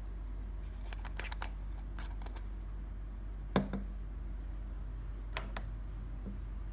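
Plastic screw-top lid being unscrewed and pulled off a jar of clear slime: a run of small clicks from the threads and the handled jar, a louder knock a little past halfway, and a few light knocks near the end as the lid is set down. A steady low hum sits under it.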